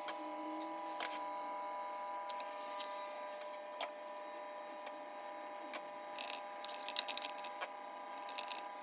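Metal spoon and fork clicking and scraping against a metal muffin tin while mince filling is spooned into pastry cases, with single clicks every second or so and a quick run of clicks about six to seven seconds in. A steady hum with a few held tones runs underneath.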